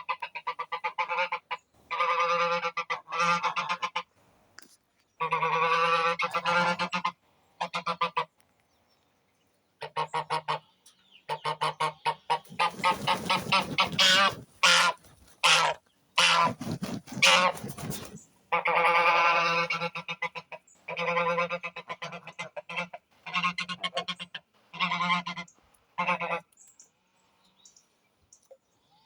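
Geese honking over and over in bursts of calls with short pauses between, with a fast run of honks in the middle.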